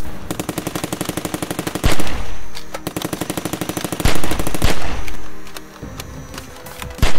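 Dubbed machine-gun sound effect standing in for a toy blaster firing: long bursts of rapid automatic fire, more than ten shots a second, broken by loud bangs about two and four seconds in and again near the end.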